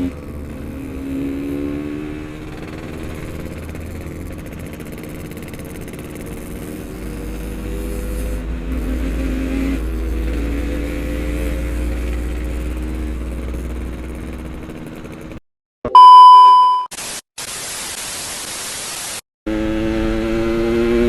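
Yamaha RX-King's 135 cc two-stroke single-cylinder engine running on the move, its pitch rising and falling with the throttle. About fifteen seconds in it cuts out for a very loud steady beep followed by about two seconds of static hiss, then the engine comes back revving up.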